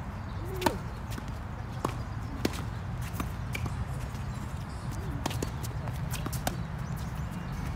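Tennis rally on a hard court: a serve struck about half a second in, then the ball knocked back and forth with racket hits and bounces, a string of sharp knocks every second or so. A steady low rumble runs underneath.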